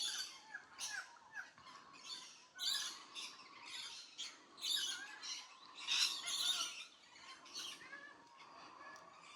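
Wild birds calling: a run of short, harsh squawks, one or two a second, with a few quick curved whistled notes in the first second and a half.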